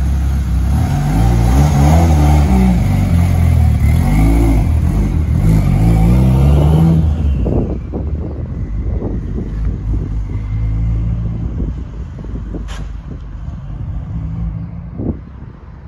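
Mitsubishi Lancer Evolution's turbocharged four-cylinder engine revving as the car pulls away, its pitch rising and falling several times. About seven and a half seconds in it drops away as the car moves off, leaving quieter noise with a few light knocks and a sharp click.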